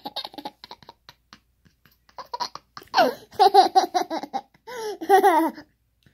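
A toddler laughing in several high-pitched bouts: quick choppy giggles at first, then two longer laughs with wavering pitch about three and five seconds in.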